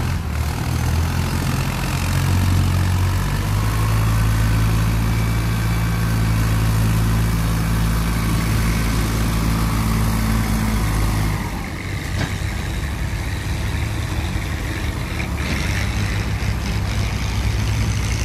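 Tractor diesel engine running steadily under heavy load as it pulls a trolley piled high with sugarcane. About two-thirds of the way through, the engine note drops and turns lighter as the load eases.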